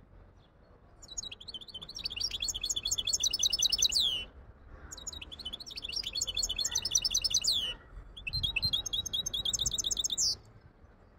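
Goldfinch hybrid singing in three phrases of about three seconds each, every phrase a run of fast, high trills; the first two end in a falling sweep.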